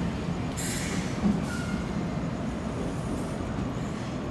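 Sydney Waratah double-deck electric train running away from the platform, a steady low rumble, with a brief hiss about half a second in.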